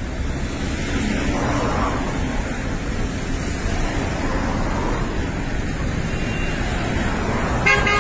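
Steady traffic rumble of cars idling and moving in a crowded queue at a filling station. A car horn sounds just before the end.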